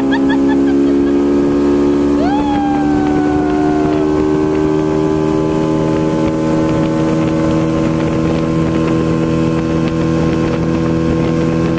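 Jet ski engine running steadily at speed while towing a banana boat, over the rush of water and wind. About two seconds in, a person's long shout rises and then slowly falls away.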